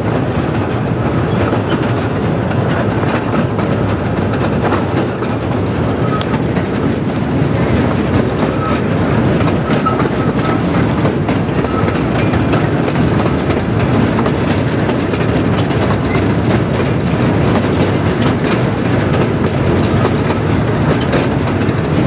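Silver Speed miniature-gauge diesel streamliner train running along its track, heard from aboard: a steady, even running noise of the moving train and its wheels on the rails.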